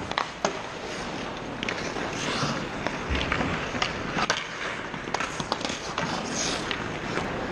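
Ice hockey skates scraping and carving on rink ice, with scattered sharp clacks of sticks and puck.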